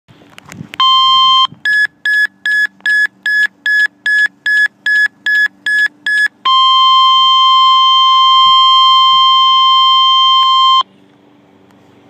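Handheld weather radio sounding a severe-weather alert through its speaker. First a short tone, then about a dozen quick high beeps at roughly two and a half a second, then a single steady alarm tone held for about four seconds that cuts off suddenly, ahead of a severe thunderstorm warning broadcast.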